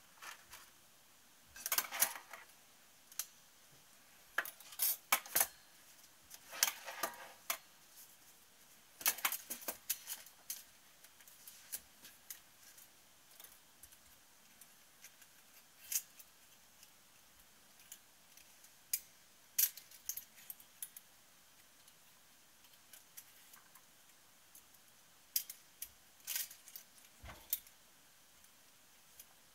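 Light metallic clinks and jingling from a steel piston ring and ring-expander pliers as the top compression ring is fitted onto a cast aluminium piston, in irregular clusters with quiet gaps between.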